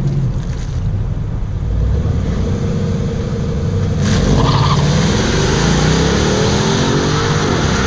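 A car engine running, with its pitch rising and falling as it speeds up. There is a sudden jump in loudness about halfway through.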